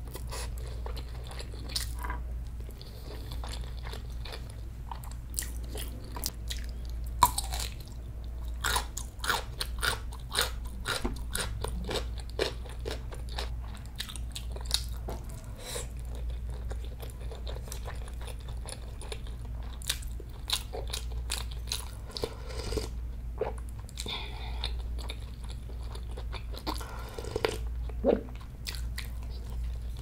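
Close-miked chewing of mouthfuls of rice bibimbap: many small, sharp, wet clicks and crunches in an irregular run, over a steady low hum.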